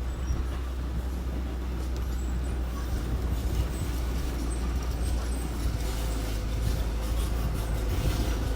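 Engine of small construction machinery running steadily, a low, even drone with some light clatter.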